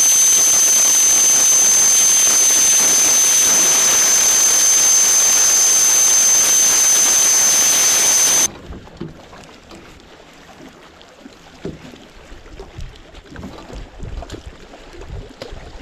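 A small outboard-powered bass boat running at speed: a loud, steady rush of air and water with a high, steady whine, which cuts off suddenly about halfway through. After that comes much quieter water sound with a few light low knocks.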